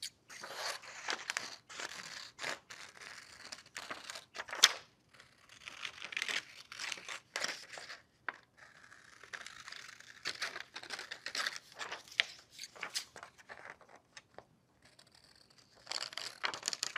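Paper scissors cutting a circle out of a sheet of paper: a run of irregular snips with the sheet rustling, pausing briefly near the end before the snipping resumes.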